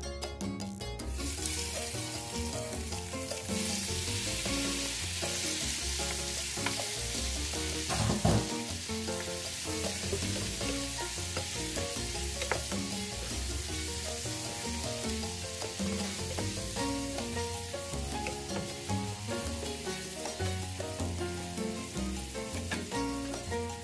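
Raw shrimp sizzling in hot olive oil in a frying pan. The sizzle starts suddenly about a second in, as they hit the oil, and holds steady while a wooden spatula stirs them. A sharp knock a little after eight seconds is the loudest moment.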